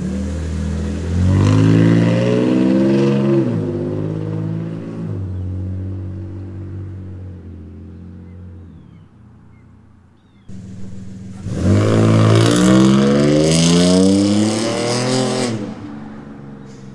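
2006 Nissan Frontier V6 with cheap aftermarket catalytic converters and a stainless catback exhaust, taking off hard and revving up through a gear change, rising in pitch, then fading away. About ten seconds in, a second loud pass comes in suddenly, rising in pitch twice before it fades.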